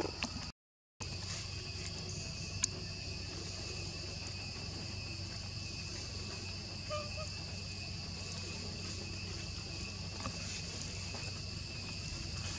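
Steady drone of forest insects, held at a few fixed high pitches. The sound cuts out completely for about half a second just after the start, and a single sharp click sounds a few seconds in.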